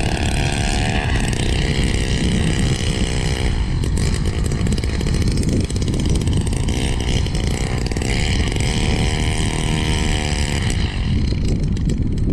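Small two-stroke engine of a gas-powered ice auger running at high revs, its pitch dipping and rising as the auger bites into the ice while drilling a hole.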